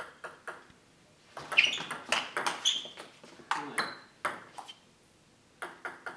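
Celluloid table tennis ball clicking sharply off bats and table in quick, irregular hits. A few come right at the start, then a dense run lasting about three seconds, a pause of about a second, and more hits starting near the end.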